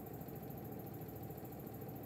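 Steady low hum and faint hiss of room background noise, with no distinct events.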